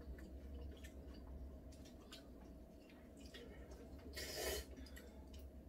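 Soft eating sounds of black-bean-sauce instant noodles: light chopstick clicks and wet mouth sounds, with one louder noodle slurp about four seconds in. A low steady hum runs underneath.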